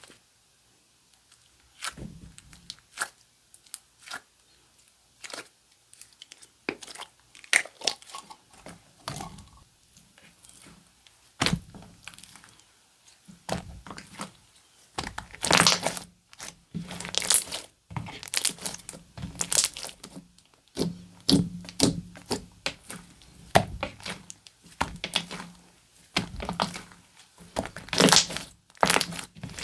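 Slime being squished, stretched and folded by hand, giving irregular crackling and popping, starting about two seconds in.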